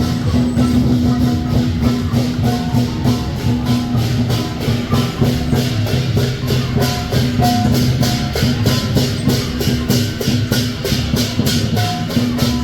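Chinese lion dance percussion: a big drum, clashing cymbals and a gong played in a steady, driving rhythm of about three beats a second, the gong's ring sounding under the strikes.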